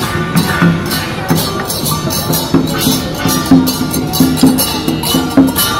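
Parade percussion: hand drums and cymbals beaten in a busy, continuous rhythm.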